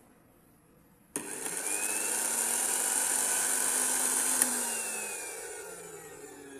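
Panasonic MX-101SG1 blender motor, running with no jar fitted: it starts suddenly about a second in and runs at speed for about three seconds. A click follows as the button is let go, and the motor winds down with a falling whine. It is running again after its stuck push-button switch was serviced.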